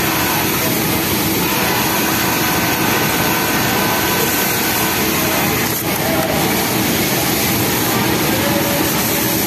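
Yamato flatlock industrial sewing machine running steadily as it stitches a T-shirt bottom hem, mixed with the constant hum of other machines around it.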